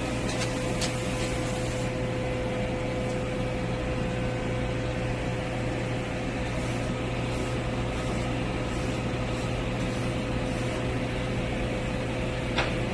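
Steady mechanical fan hum of welding-shop equipment, with a constant tone, a couple of light clicks in the first second and a sharper click near the end.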